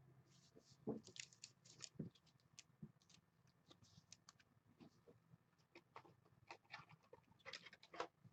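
Faint, irregular clicks and scrapes of trading cards being flipped and slid against one another in the hand.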